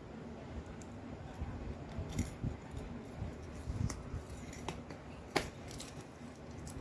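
Stationery being handled: a few separate small clicks and taps, the sharpest about five seconds in.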